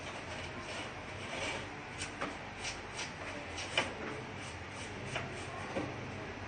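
Dry brushing and rubbing on the plastic casing of an Epson LQ-2190 dot-matrix printer while it is being dusted off, with scattered light taps and knocks, the sharpest a little under four seconds in.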